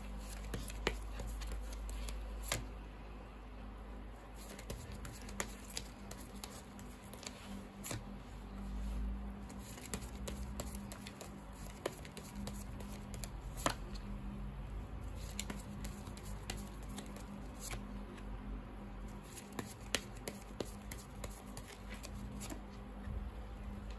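Tarot cards being handled and dealt one at a time onto a tabletop, heard as scattered soft clicks and paper rustles at irregular intervals. A low, steady hum runs underneath.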